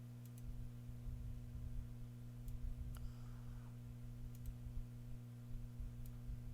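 A few faint, scattered clicks over a steady low electrical hum.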